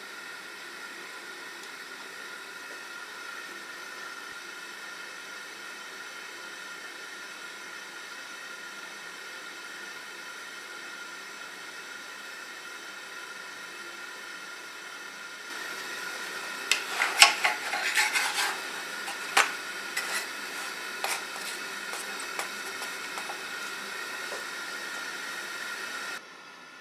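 Steady hiss, then about two-thirds of the way in a run of sharp clinks and scrapes of a utensil against a non-stick frying pan as a lavash flatbread cooking in the dry pan is turned over.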